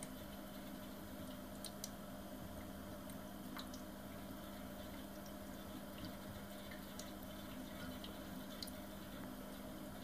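Faint steady low hum from an HHO (oxyhydrogen) electrolysis rig, with sparse irregular drip-like ticks, as of gas bubbling through water.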